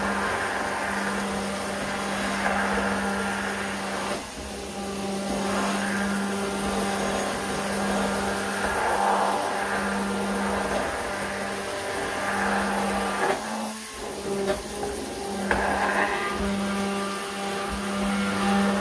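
Hand-held immersion blender running steadily as it purees pumpkin soup, its motor hum breaking off briefly about three-quarters of the way through.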